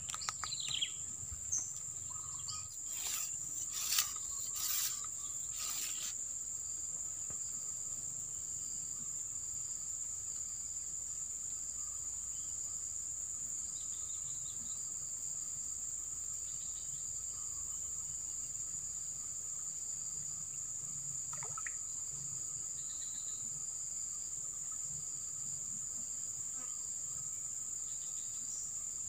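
A steady, high-pitched chorus of insects such as crickets drones without a break. A few sharp clicks and knocks sound in the first six seconds.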